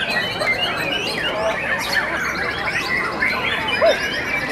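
Many caged white-rumped shamas singing at once, a dense chorus of overlapping whistles, chirps and trills, with one louder looping call near the end.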